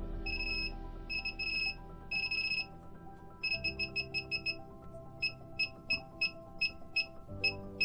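Electronic beeps from the X-Tronic 4040 Pro X soldering station's keypad as its temperature-setting buttons are pressed. First come three runs of rapid beeping, then short single beeps at a steady rate of about three a second. Background music plays underneath.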